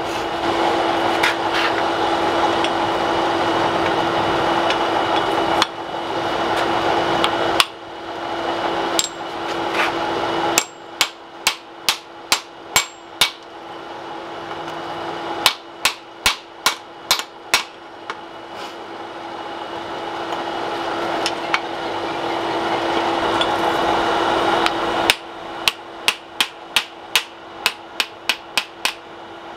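Blacksmith's hammer striking a hot axe head on an anvil in short runs of sharp blows, about two a second, over a steady background hum.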